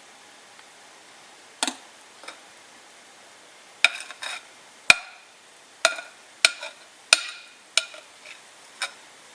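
Kitchen utensils clinking: about ten sharp, irregularly spaced strikes, each with a short metallic ring, over a steady faint hiss.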